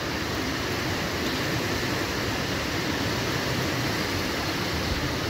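Steady rushing of wind and rain over the phone's microphone, with a fluttering low rumble from the gusts.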